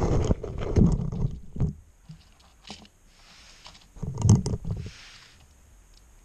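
Close rumbling and low thumps from a person moving on a wooden floor right beside the microphone. Then come faint clicks from small plastic Lego parts of a toy street sweeper being handled, with a second short burst of rumbling and clicking about four seconds in.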